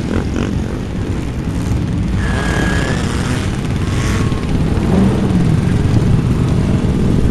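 Quad (ATV) engines running close by, a steady loud low rumble, with two brief thin tones about two and four seconds in.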